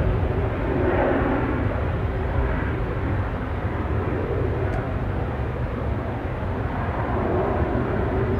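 Business jet's engines as it climbs away after takeoff: a steady, dense rumble that slowly fades.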